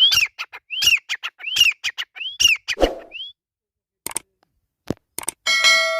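Grey francolin (desi teetar) calling: about five whistled calls, each rising then falling, repeated a little under a second apart and stopping after about three seconds. A few sharp clicks follow, and near the end a loud metallic clang rings out and dies away slowly.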